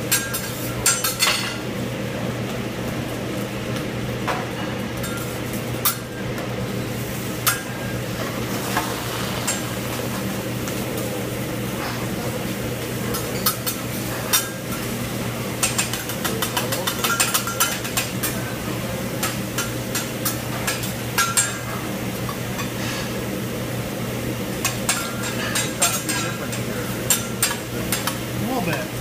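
A hibachi chef's metal utensils striking, tapping and scraping on a steel teppanyaki griddle, in irregular sharp clinks, with food sizzling. A steady low hum runs underneath.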